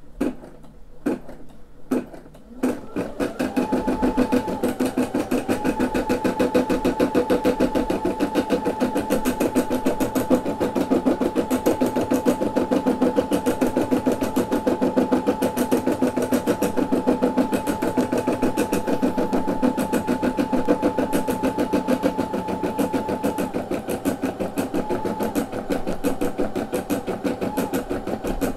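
Brother SE600 embroidery machine stitching an embroidery design, its needle working at a fast, steady rhythm with a held motor whine. A few clicks come first, and the stitching starts up about three seconds in.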